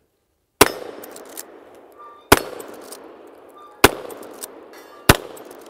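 Four shots from a Henry Lever Action Axe .410 firing 000 buckshot, roughly one and a half seconds apart, each followed by a short echoing decay. Small clicks between the shots are the lever being worked.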